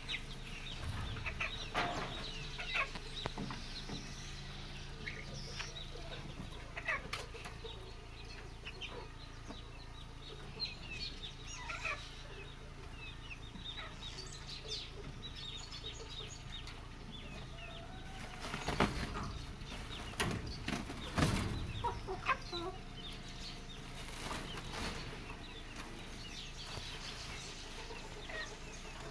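Chickens clucking, with scattered knocks and rustling among them; the loudest bursts come about 19 and 21 seconds in.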